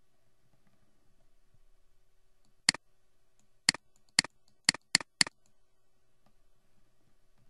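Computer mouse button clicked six times, sharp single clicks that come closer together, the first one second apart and the last a quarter second apart.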